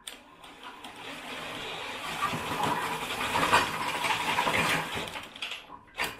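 Power drill boring out a misaligned bolt hole in an aluminium truck-rack cross rail, the bit cutting into the metal to elongate the hole. The drilling gets louder over the first two seconds, runs on steadily and stops near the end.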